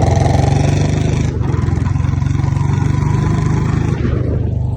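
Royal Enfield Bullet's single-cylinder engine and exhaust running loud under way, with an even thumping beat; the throttle eases off about a second and a half in and the bike carries on at a lower, steadier note.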